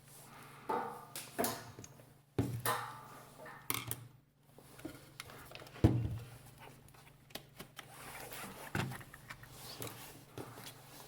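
Irregular clicks and knocks of tools and parts being handled on a repair bench, loudest about six seconds in, over a steady low hum.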